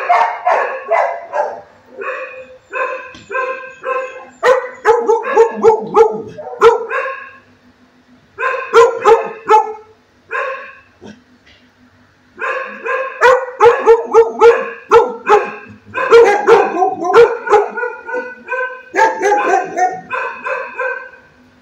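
A dog barking in fast runs of several barks a second, broken by a couple of short pauses partway through.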